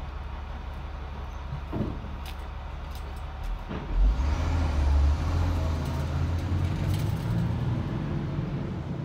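Heavy vehicle's engine idling with a low rumble, then revving up about four seconds in and running louder. A brief clatter comes about two seconds in.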